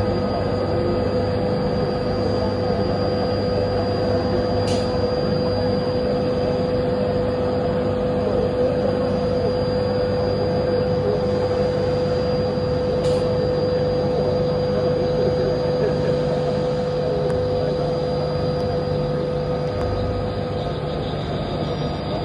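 Takamaz XT-8MY CNC lathe running a cut on a shaft: a constant machine noise with a steady whine, and two faint ticks along the way.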